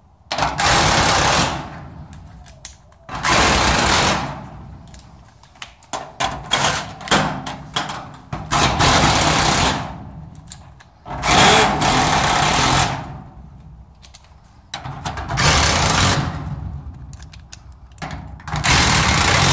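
A cordless power driver driving screws through the hinges into the steel garage door sections: seven runs of about a second each, a few seconds apart, with handling noise between them.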